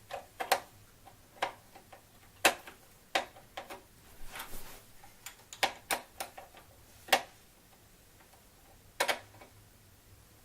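Irregular clicks and taps of a small hand screwdriver turning a screw into the plastic handle of a stick vacuum during assembly, with a brief scrape about halfway through. The clicks stop about seven seconds in.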